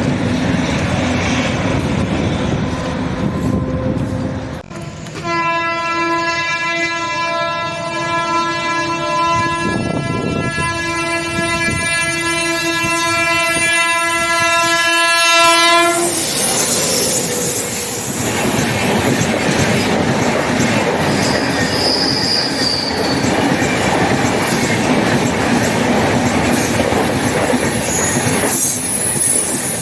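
Passing train running on the rails with wheels clattering. About five seconds in, a locomotive horn sounds one long, steady, loud blast lasting about eleven seconds. After it stops, the train keeps rolling past with clickety-clack and a brief high wheel squeal.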